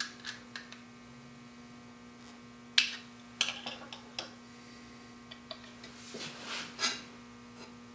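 Light metal clicks and knocks as a chisel clamped in a honing jig is handled and set down on a diamond sharpening stone, with one sharp clack about three seconds in and two brief scuffs a little before seven seconds. A steady low hum runs underneath.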